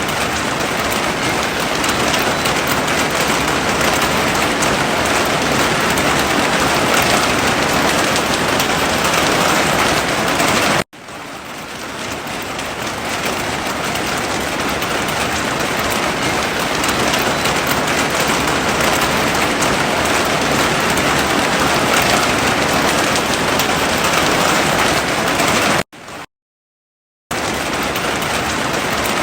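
Heavy rain falling steadily. It cuts out abruptly about eleven seconds in and swells back up over a couple of seconds, then drops to silence for about a second near the end.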